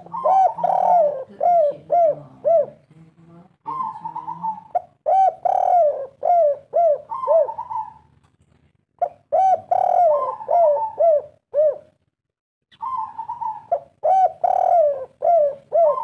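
Spotted dove cooing in the rhythm Indonesian keepers call a 'kuk 3' song. It sings four repeated phrases with short pauses between them. Each phrase opens with a rolling note and runs on into a string of short, falling coos.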